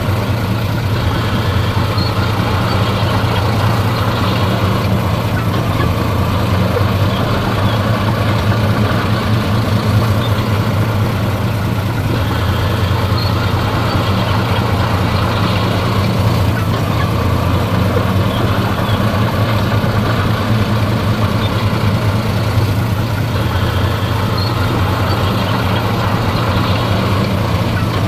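Heavy diesel engine of earthmoving machinery running steadily: a loud, constant low drone.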